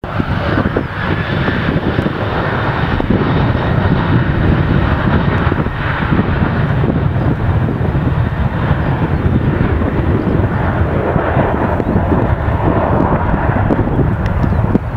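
Boeing 737-800's CFM56-7B turbofan engines at takeoff thrust during the takeoff roll: a loud, steady jet noise, heaviest in the low end.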